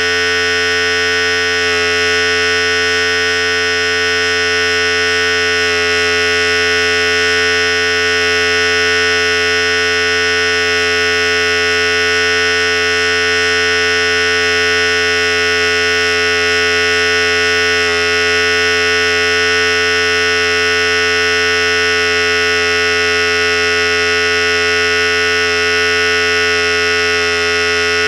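Philips Series 5000 electric hair clipper running steadily, a constant loud buzz with one strong hum tone and its overtones.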